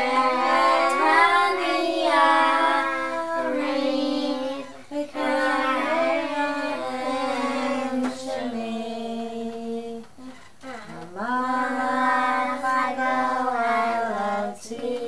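A child singing a slow melody in one clear voice, holding long notes that step from pitch to pitch, in phrases with short breaks.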